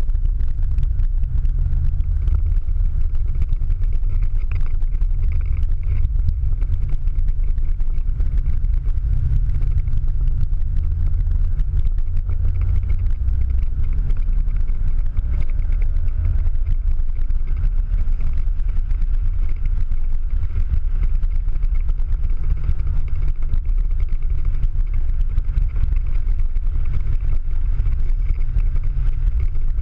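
Ford Mustang Boss 302's 5.0-litre V8 engine running under way on track, heard from inside the cabin as a steady low drone.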